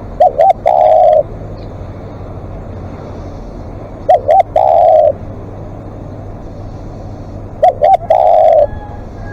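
Spotted dove cooing: three calls about three and a half seconds apart, each two short notes followed by a longer drawn-out coo.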